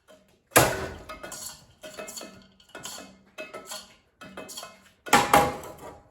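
Plastic ceiling fan blades being struck, giving about six sharp clattering knocks, each with a short rattle after it. The hardest knocks come about half a second in and about five seconds in.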